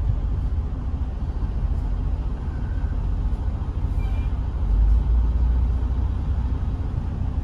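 Diesel semi truck engine running with a steady low rumble, heard from inside a truck cab, swelling louder for a second or so just past the middle.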